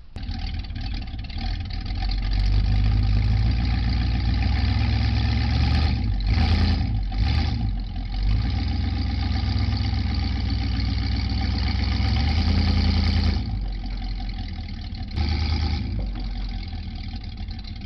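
Pickup truck engine working under load as it drags another truck backwards on a tow strap: the engine builds up about two seconds in, pulls steadily, eases off briefly near the 13-second mark, then pulls again.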